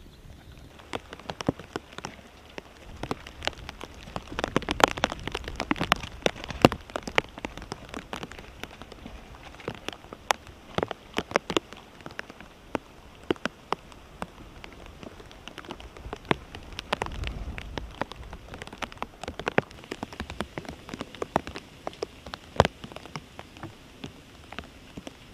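Active lava flow crackling: many irregular sharp cracks and pops over a steady hiss, busiest about four to seven seconds in.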